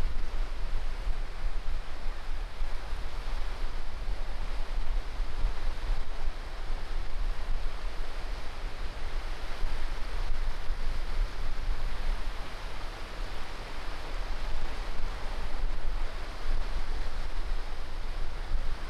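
Small sea waves breaking and washing up a sandy beach, a steady hiss of surf that swells and eases gently, with a low rumble underneath.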